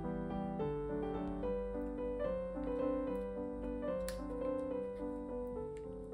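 Background piano music: a steady, gentle run of single piano notes.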